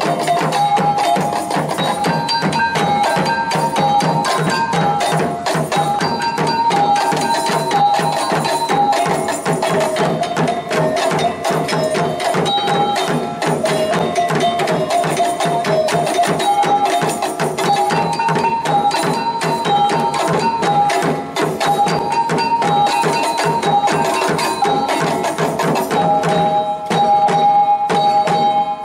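Traditional Indonesian dance music accompanying a mandau sword dance: fast, steady drumming under a repeating melody.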